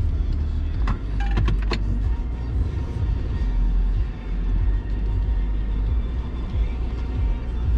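Steady low rumble of a car's engine and tyres heard inside the cabin while driving slowly, with a few short clicks between one and two seconds in.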